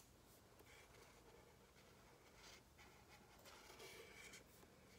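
Faint scratching of a marker drawing strokes on paper held on a clipboard.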